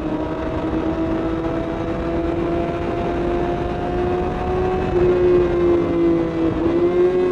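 Suzuki GSX-R sportbike's inline-four engine running at steady revs while cruising at speed, with wind rush. The engine note holds nearly level, dips briefly about six and a half seconds in, and comes straight back up.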